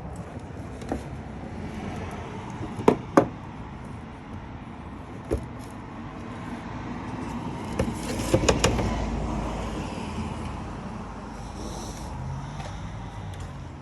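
Two sharp snaps about three seconds in, a wire cutter cutting through the old backup camera's cable, followed by scattered clicks and rustling as wiring is handled, over a steady low hum.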